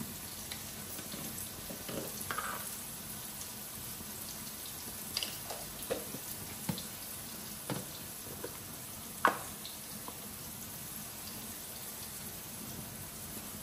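Fried rice sizzling steadily in a pan, with a spatula knocking and scraping against the pan every so often, the sharpest knock about nine seconds in.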